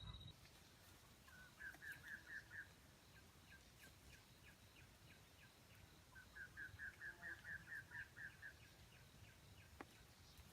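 Faint bird call: two runs of quick, evenly repeated high chirps, about five a second, the second run longer, over quiet outdoor background.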